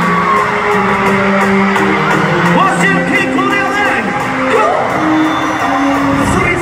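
Concert music through an arena sound system, sustained notes without a heavy beat, under an arena crowd's steady screaming and cheering. High wavering cries rise above the crowd about midway through.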